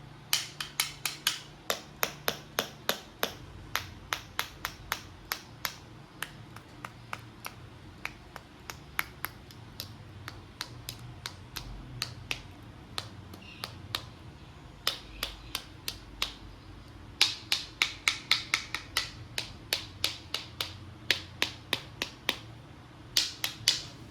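Hard plastic toys clicking and tapping: runs of sharp clicks, several a second, thinning out in the middle and bunching again late on.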